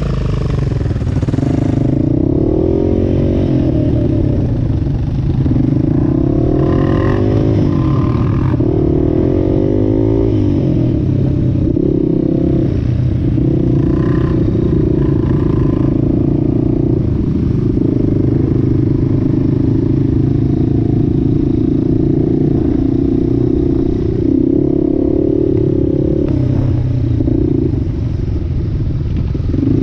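Off-road vehicle engine running under throttle, revving up and down several times in the first ten seconds, then holding a steadier speed with a couple of brief dips near the end.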